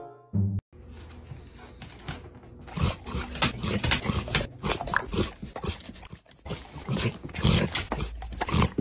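A dog making a run of excited noises, irregular and closely spaced, while food is held out to it: begging for the treat.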